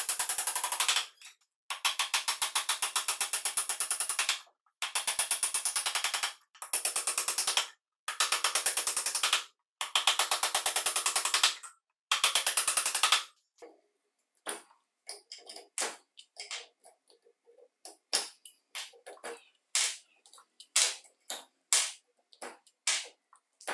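Steel tool hammered rapidly against an electric motor armature's commutator bars, about five or six sharp taps a second in bursts of two to three seconds, knocking the bars loose. From about two thirds of the way through, scattered irregular clicks and crackles as the armature's copper windings are pulled out with pliers.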